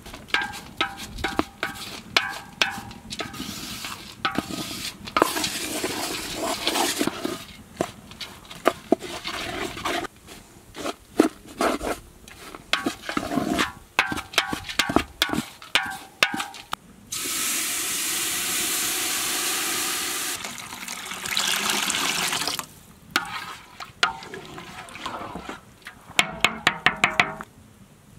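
A wooden spatula scrapes and knocks through ground walnuts in a metal pot, the pot ringing briefly at some knocks. Past the middle comes a steady pouring rush of about three seconds, then a shorter one. Near the end a metal pot lid clatters in a quick run of ringing clicks.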